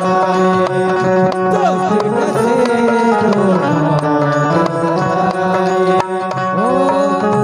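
Ghazal accompaniment playing an instrumental passage between sung lines: tabla drumming under sustained melody notes, with a few sliding pitches.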